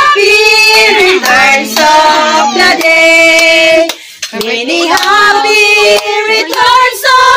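A woman's voice singing a slow melody in long held notes, with a short break for breath about four seconds in.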